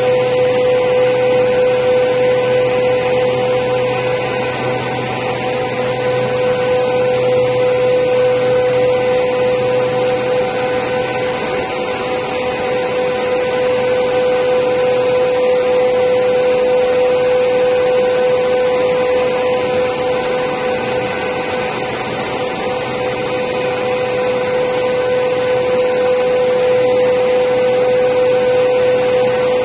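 Four-side planer moulder running: a steady machine hum with one strong held tone, its loudness swelling and easing a little.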